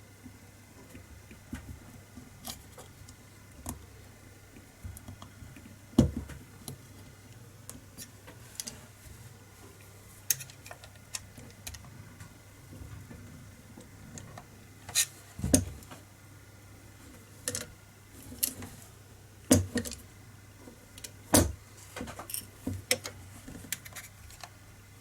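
Small steel parts of an air rifle's trigger mechanism clicking and tapping as they are handled and fitted by hand: scattered light clicks with a few sharper knocks, one about six seconds in and several between fifteen and twenty-two seconds.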